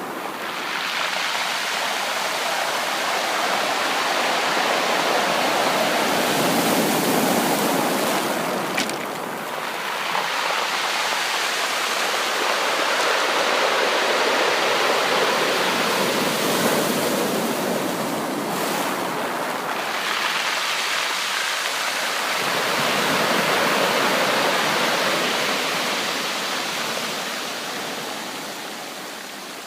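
Sea waves washing on a shore, a steady rush of surf that swells and eases over a few seconds at a time.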